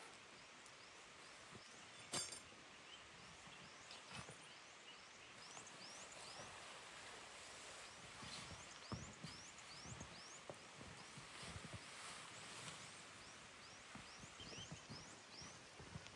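Faint outdoor ambience: a soft steady hiss with many short high chirps through the middle, and one sharp click about two seconds in.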